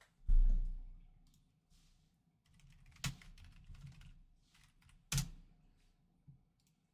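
Baseball trading cards being handled and flipped through, with soft rustling and light clicks as the cards slide against each other. A low thump about half a second in, and two sharp clicks near three and five seconds.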